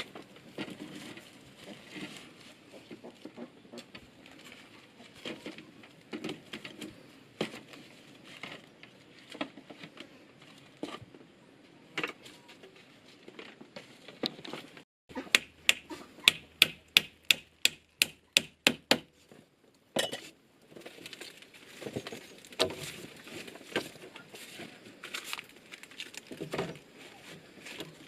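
Scattered rustling and light knocks, then a quick, even run of sharp strikes, about four a second, lasting some four seconds, before the rustling and knocking resume.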